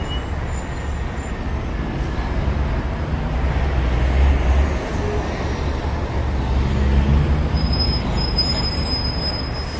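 Road traffic: passing vehicles' engine rumble and tyre noise, swelling about four and seven seconds in as cars go by close. A thin steady high tone joins near the end.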